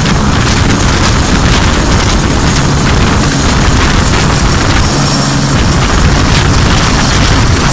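Turbine helicopter hovering low overhead with a load on its sling line: a steady rotor beat and rushing downwash noise, with a thin, high, steady whine above.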